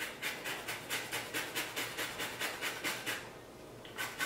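Lemon rind scraped along a handheld stainless steel rasp zester in quick, even strokes, about five a second. The scraping pauses briefly a little after three seconds in, then starts again.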